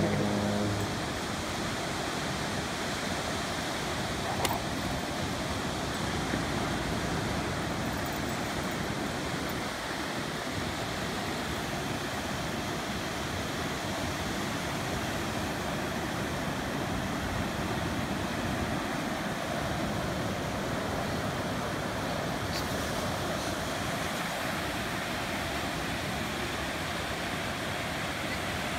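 Ocean surf breaking and washing up the beach: a steady, unbroken rushing noise.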